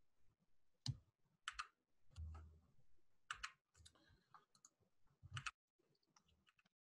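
Faint, irregular clicking of computer controls, several clicks coming in quick pairs, with one soft low thud about two seconds in, as the lecture slides are advanced.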